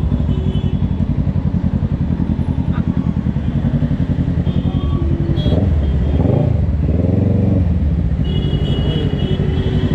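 Kawasaki Ninja 650's parallel-twin engine running at low speed in traffic, its exhaust pulsing steadily, with the pitch rising and falling briefly about six to seven seconds in. Short high-pitched beeps come twice from the surrounding traffic.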